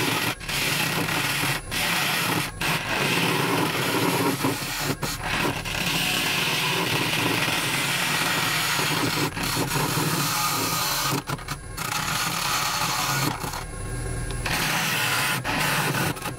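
Wood lathe spinning a large root-wood vessel while a hand-held gouge cuts into its open mouth, a dense cutting and scraping noise over the lathe's steady motor hum. The cutting breaks off briefly several times as the tool comes off the wood, once for about a second near the end.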